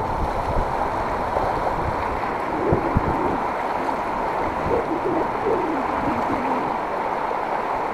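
Fast-flowing river water rushing steadily, with a couple of soft low knocks about three seconds in.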